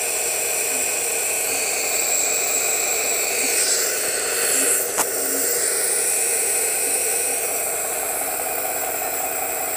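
Compressor nebulizer running steadily, a constant motor hum with a hiss of air through the tube and mask. A single sharp click about five seconds in.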